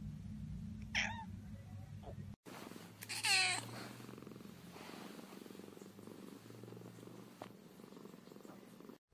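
A young cat lying on its back while being stroked gives one short, high meow, then purrs steadily. A brief call comes before it, about a second in.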